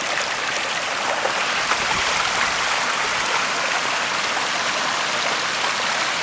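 Rainwater runoff flowing steadily across a saturated garden bed, a continuous rushing and trickling of water with rain falling.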